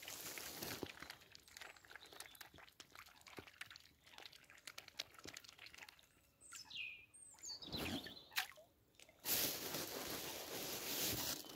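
Mute swans feeding at the water's edge: their bills dabbling and dipping make many small wet clicks, splashes and drips. A few short falling chirps come around the middle, and a rush of noise comes near the end.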